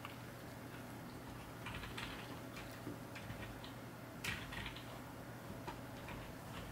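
Corgi puppy eating food from a ceramic bowl: faint, irregular small clicks and crunches of food and teeth against the bowl, with one sharper click about four seconds in.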